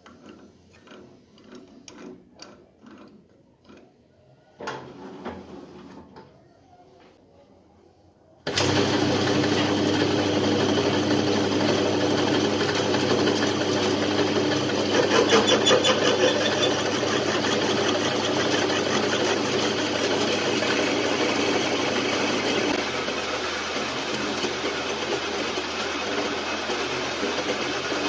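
A few light clicks and knocks of metal tools being handled, then a homemade metal lathe suddenly running about eight seconds in, steady and loud, as a large twist drill bores into the spinning metal bar. It is briefly louder about halfway through.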